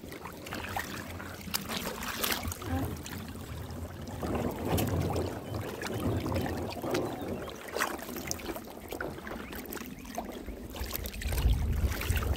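Shallow river water splashing and rippling around a sea kayak as it is hauled by hand over a gravel shoal, with scattered short knocks and scrapes. A louder low rumble comes in near the end.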